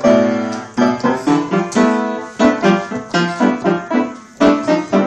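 Wooden upright piano being played: a simple run of notes and chords struck about three times a second, each one ringing on into the next.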